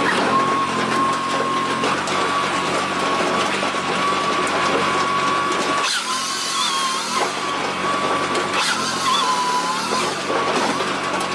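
Trailer-mounted firewood processor running: its small engine drives a steady hum, under a high whine that holds steady, then from about halfway wavers and bends up and down in pitch several times as the machine works.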